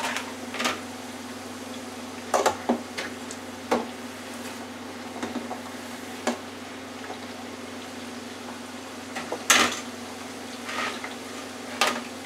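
Jumbo shrimp frying in a countertop electric deep fryer, the oil bubbling steadily, while metal tongs clink against the fryer and a wire rack in short, scattered knocks. The loudest clatter comes about nine and a half seconds in.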